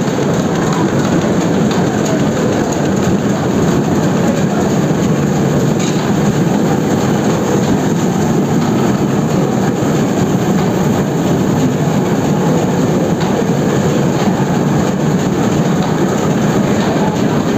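Web offset newspaper printing press running, with a steady, loud mechanical running noise as the paper web feeds through its rollers.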